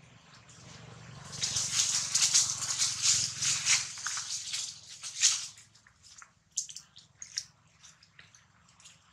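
Dry leaf litter and leafy stems rustling and crackling as a monkey moves in them: a dense burst of a few seconds, then scattered snaps and clicks.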